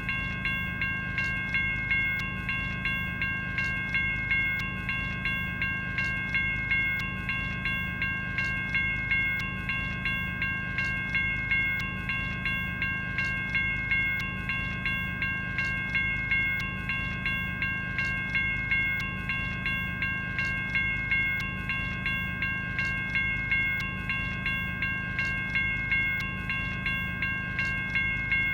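General Signals Type 1 electronic railroad crossing bell ringing continuously, struck at a steady, even pace, each strike's bright metallic tone ringing on into the next.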